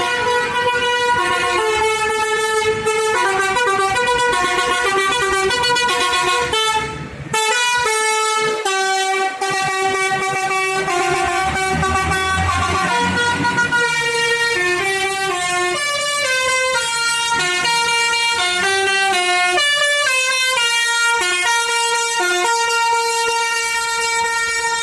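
Bus telolet horn, a Basuri multi-trumpet horn mounted on the roof, played nonstop as a melody of quick changing notes, with a short break about seven seconds in.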